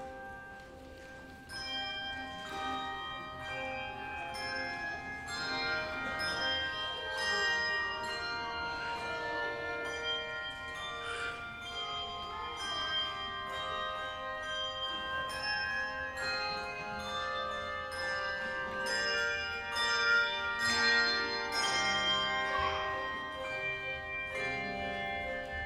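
Handbell choir playing a piece: many tuned bells struck one after another, each note ringing on and overlapping the next. It starts softly and fills out about a second and a half in.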